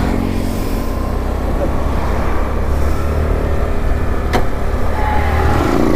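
Scooter engine running with steady road and wind noise while riding at low speed, towing a flooded, non-starting two-stroke motorcycle along by foot. There is one sharp click a little over four seconds in, and a steadier engine hum builds near the end.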